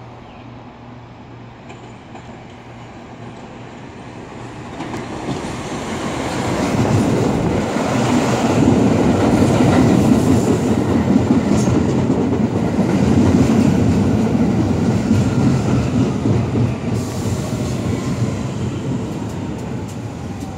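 R46 subway train pulling into the station close alongside, its wheels rumbling and clacking on the rails, growing loud as the cars come by and easing toward the end. A thin whine falls steadily in pitch over the last few seconds as the train slows.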